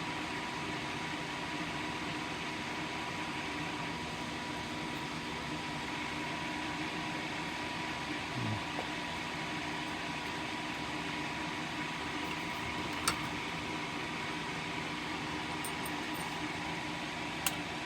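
Steady whirring hum of a small fan or ventilation motor, with a thin steady whine above it and a couple of light clicks late on.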